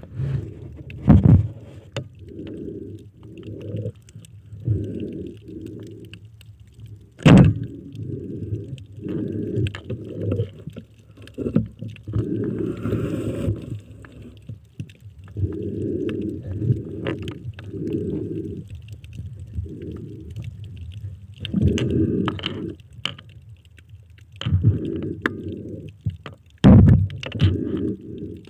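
Muffled underwater sound: low rumbling surges of water moving as the spearfisher swims, broken by several sharp knocks, the loudest about seven seconds in.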